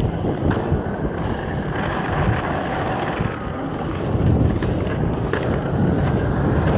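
Inline skate wheels rolling over pavement: a steady rolling noise with a few faint clicks, with wind buffeting the camera's microphone.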